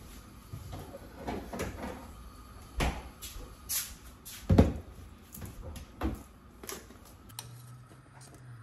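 Kitchen handling sounds: scattered knocks, clunks and clicks of cupboards and cookware, the loudest a little past halfway. A low steady hum comes on near the end.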